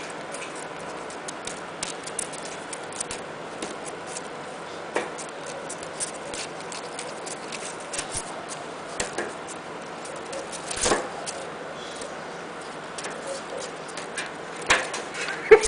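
Scattered light clicks and taps from a young Indian ringneck parakeet pulling at and chewing a camera strap, with a louder knock about eleven seconds in and another near the end.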